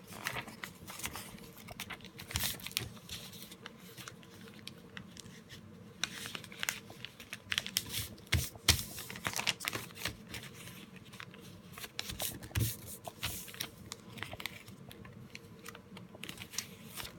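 A sheet of printer paper being folded and creased by hand into a paper airplane: irregular crinkles, rustles and sharp little taps as the folds are pressed down.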